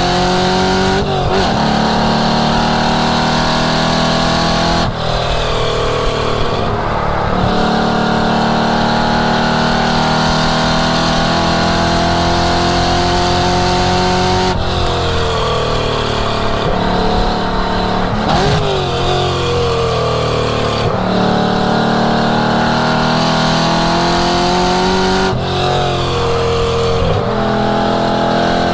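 1967 Ford Mustang's V8 engine driven hard around a race track. The revs climb steadily, then drop sharply at each gear change or lift, several times over.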